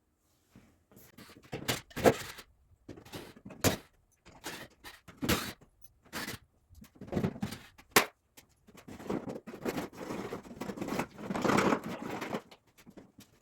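Hand tools and parts handled during work on a truck: a string of irregular knocks and clunks, then a longer stretch of rustling and scraping near the end.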